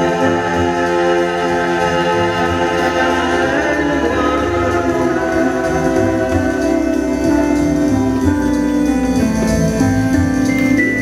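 Live electronic music: layered, held organ-like keyboard chords that change every few seconds.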